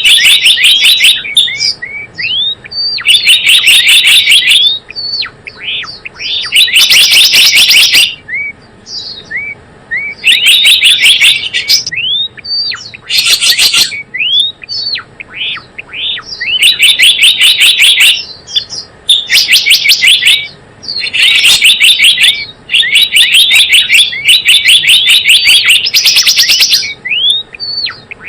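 Recorded lure call of a gelatik bloong bird: bursts of rapid, sharp chirps lasting a second or two each, repeated every couple of seconds, with short single upslurred notes between the bursts.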